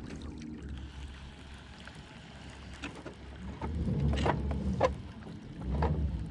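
Low steady hum of a small boat's electric trolling motor, with rumbles of wind on the microphone in the second half and a few sharp knocks.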